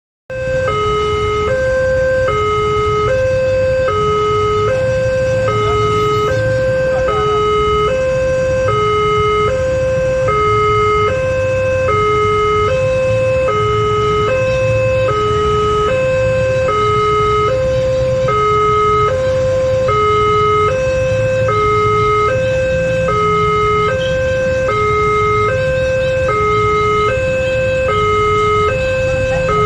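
Railway level-crossing warning siren of the Multech type, sounding a steady two-tone hi-lo wail that alternates between a higher and a lower pitch about every half second. A low, steady rumble runs underneath.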